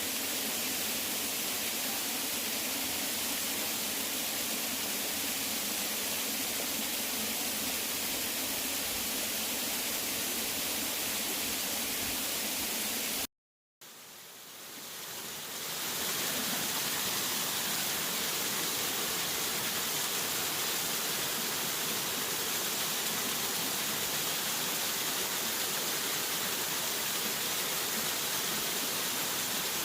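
Steady rushing of a waterfall. About thirteen seconds in, the sound cuts out to silence for a moment, then fades back in over a couple of seconds.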